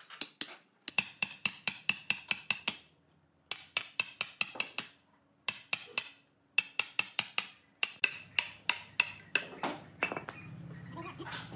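Wooden mallet striking a chisel, driving it into the wood of a tree stump: quick runs of sharp, ringing knocks, about five a second, broken by short pauses.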